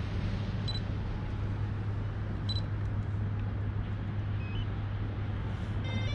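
A quadcopter drone giving two short electronic beeps, then near the end a quick run of stepped beeping tones as it powers up, over a steady low background rumble.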